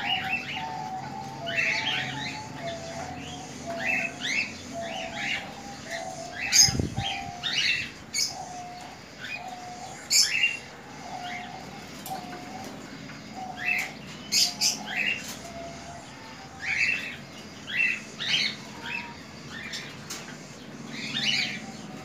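Many caged small parrots chirping in short, sharp calls, over a lower short note repeating about once a second. A single low thump about seven seconds in.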